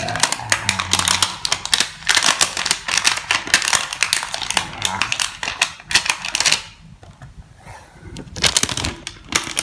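Plastic protective sleeve on a new smartphone crinkling and crackling as it is handled and pulled off, in dense rapid crackles. The crackling dies down for about two seconds near the end, then a few more crackles follow.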